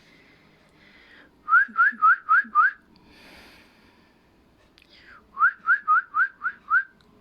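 Cockatiel whistling: two quick runs of five short rising whistle notes, the second run starting about four seconds after the first.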